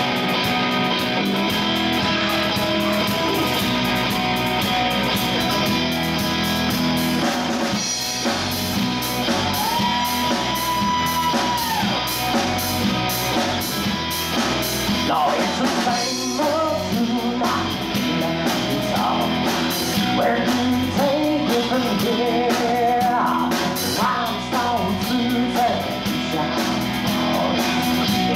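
Live rock band playing: electric guitar, electric bass and drum kit, loud and continuous.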